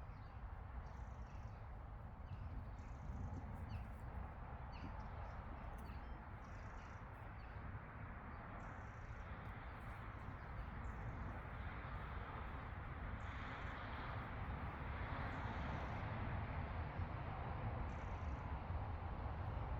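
Pasture ambience: a steady rushing noise, louder in the low end and swelling a little in the second half, with short faint high chirps every second or two.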